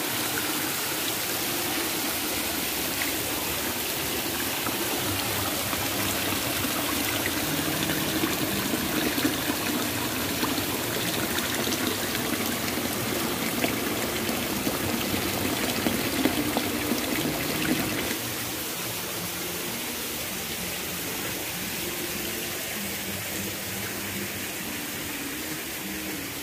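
Water from an artificial rock waterfall splashing and trickling into a pond, a steady rushing; it drops quieter about eighteen seconds in.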